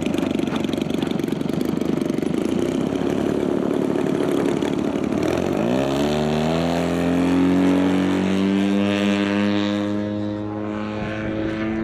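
Radio-controlled aerobatic airplane's motor and propeller running up for take-off: rough and noisy at first, then about halfway through the pitch rises and settles into a steady drone as the plane climbs away.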